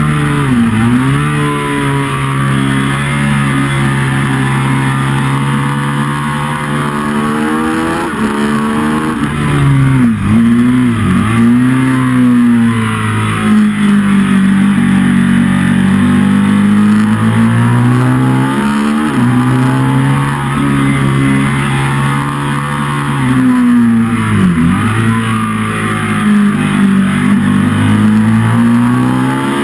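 Ducati 1199 Panigale's 1198 cc Superquadro V-twin at racing speed on track. The engine note climbs with the throttle and drops sharply in quick steps under braking and downshifting, about a second in, around ten seconds in and again near the end, before rising again out of the corners.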